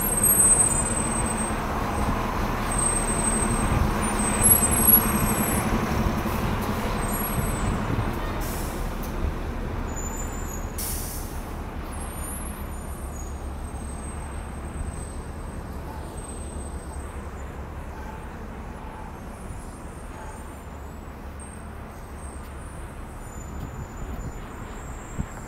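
City transit bus running at the curb with a steady low engine hum, loudest over the first several seconds and then fading away, leaving a wash of street traffic.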